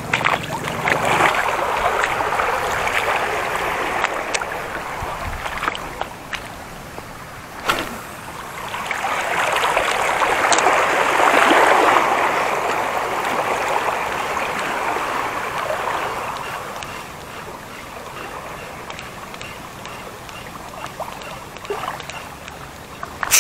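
Small sea waves washing over the shallows at the water's edge, in two long surges that rise and fade, the louder one about ten seconds in, with a few light clicks between.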